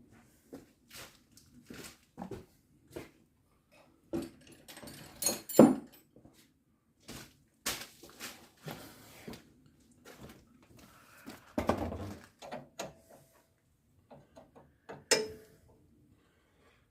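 Irregular clicks and metallic knocks of a 17 mm spanner being worked on the nut of a steering damper mounting, tightening it up. A louder clink comes about five and a half seconds in, and a short ringing clink near the end.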